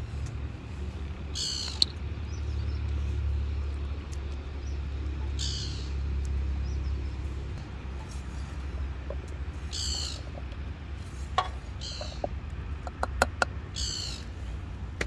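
Portable butane gas stove burner running with a steady low hum under a pot of vegetables. A spatula stirs the pot in short scraping strokes about five times, with a few sharp taps against the pot near the end.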